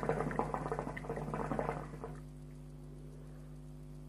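Shisha (hookah) water bubbling in the AK-47 pipe's vase as smoke is drawn through the hose. The bubbling is rapid and continuous and stops about two seconds in, leaving a steady low electrical hum.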